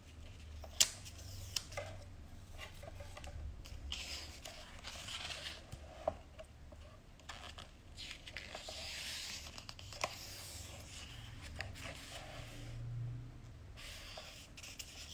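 Pages of a large photobook being turned by hand: faint paper swishes and rustles, with a few sharp light taps in between.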